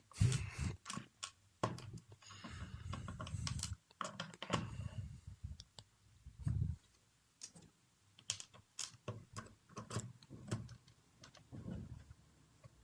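Plastic clicks, taps and scraping as the laptop's plastic bottom cover is fitted back on and snapped into place.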